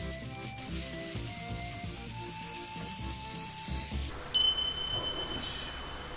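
Background music over the high hiss of a handheld steam cleaner's nozzle blasting steam into a sofa. About four seconds in, the music breaks off and a sudden sound effect with high ringing tones takes over, fading out over about two seconds.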